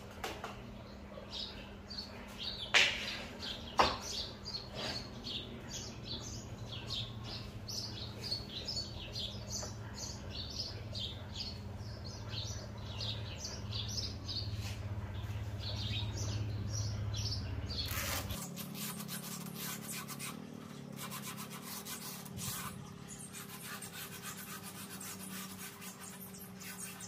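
Small birds chirping again and again, broken by two sharp knocks about three and four seconds in. From about eighteen seconds in, a scratchy rubbing sound takes over.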